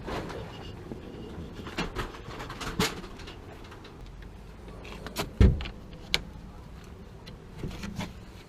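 Scattered clicks and knocks over a low background hum, with one heavy thump about five and a half seconds in.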